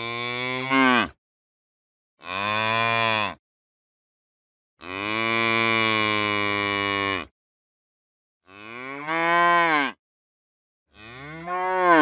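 Cows mooing: a string of about five separate calls, the first already under way, with a long steady moo in the middle and later ones that rise and then fall in pitch. Each call stops cleanly into dead silence, as edited sound-effect clips.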